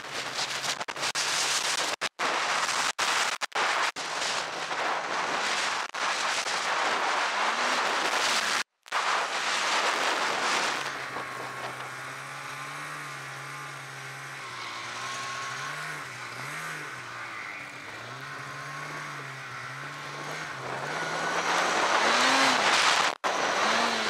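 Snowmobiles running in deep powder. Loud rushing wind and snow noise over an engine fills the first ten seconds, broken by a few abrupt cut-outs. Then a more distant snowmobile engine drones, its pitch rising and falling as it is throttled, before the loud rush returns near the end.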